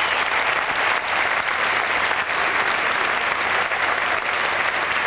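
Large crowd applauding steadily, a dense, even clatter of many hands clapping.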